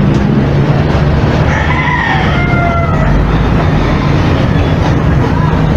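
Steady hiss of a gas brazing torch's blue flame heating copper refrigerant tubing, over a low hum. A rooster crows once, about a second and a half in, with a falling call.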